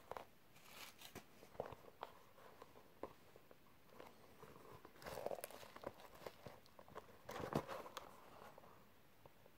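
Handling noise from a new synthetic-leather football boot turned and bent in the hands: soft rustling and small clicks, with two louder rustles about five and seven and a half seconds in.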